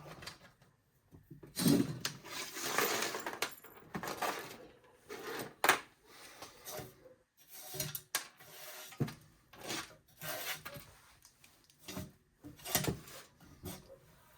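Parts of a small electric melting furnace being handled and taken apart: irregular knocks, clinks and scrapes of hard parts, with a longer scraping stretch about two to three seconds in.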